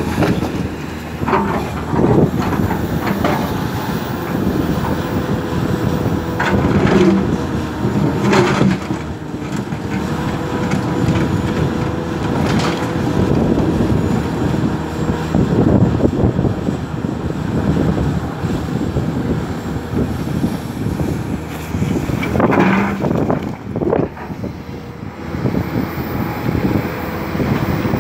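Komatsu PC450 long-reach excavator working: its diesel engine and hydraulics run steadily with a held hum, while knocks now and then come from the bucket digging and dropping rock and mud.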